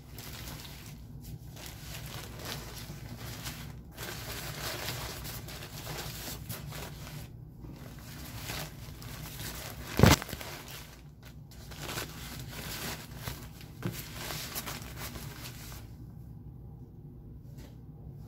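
An adult diaper's printed plastic backing crinkling and rustling as it is handled and unfolded, in bouts with short pauses. One sharp, loud snap comes about halfway through, and the crinkling dies down near the end.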